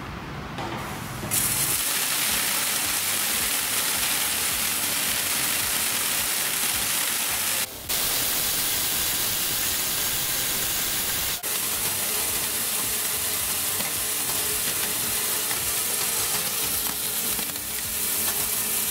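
Sovda Pearl Mini coffee color sorter running on roasted beans: a dense, steady hissing rush of beans streaming out of the chutes and pattering into plastic bins. It starts about a second in and drops out briefly twice.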